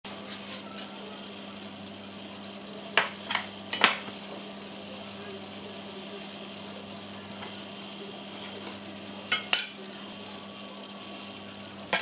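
Knife clicking and scraping against a wooden cutting board while boiled rapa whelk meat is cleaned of its innards: scattered sharp clicks, a few in quick succession around a third of the way in and again near the end, over a steady low hum.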